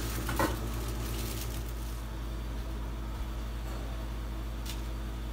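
Steady low mechanical hum of a running appliance, with a light knock about half a second in and a fainter one near the end.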